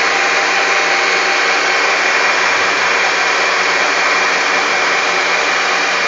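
Electric cake mixer motor running steadily, beating egg batter while melted margarine is added a little at a time.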